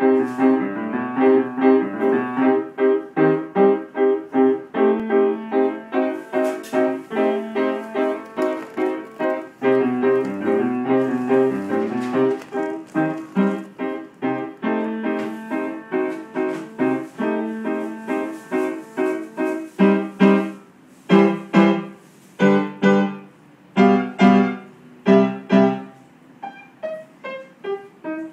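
Upright piano being played: a quick run of repeated chords over a moving bass, then from about two-thirds of the way through, louder separated chords with short gaps between them.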